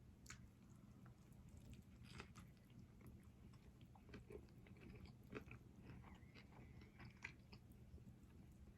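A person chewing food, faint, with soft wet clicks and small crunches coming at an uneven pace.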